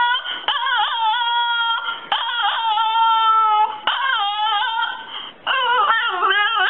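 Small long-haired dog howling in a string of long, high-pitched calls, about four or five, each wavering at the start and then held steady. Near the end the calls become more broken.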